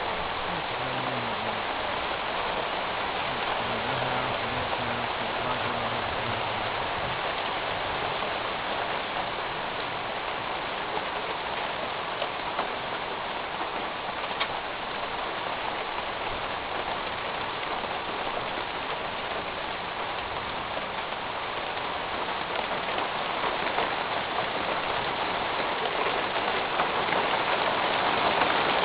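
Heavy rain drumming on a metal roof, a dense steady patter that grows louder over the last few seconds.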